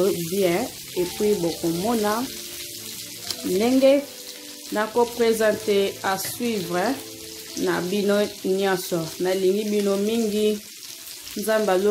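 A singing voice with held, wavering notes, over the steady sizzle of chicken strips frying in a pan and being stirred with a wooden spatula.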